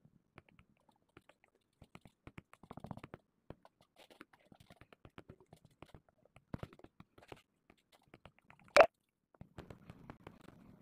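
Scattered faint clicks and ticks, irregular and close to the microphone, with one loud sharp click near the end.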